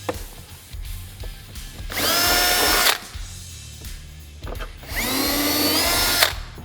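Power drill run twice, each time for about a second, spinning up and boring through the plastic fender flare into the plastic fender behind it for push-pin holes.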